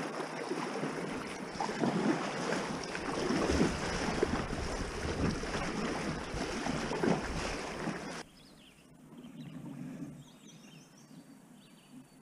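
Fast creek water rushing and splashing around an inflatable packraft as it is paddled through riffles, with paddle splashes and wind on the microphone. About eight seconds in it cuts suddenly to the quiet of calm water, with faint bird chirps.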